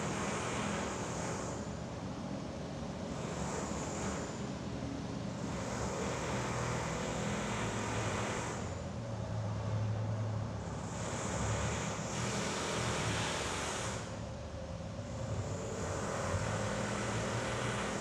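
Steady rumbling background noise, with a higher hiss that comes and goes every second or two.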